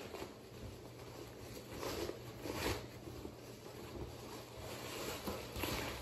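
Soft rustling of a cloth dust bag being opened and pulled back off a handbag, with a few louder swishes about two seconds in and near the end.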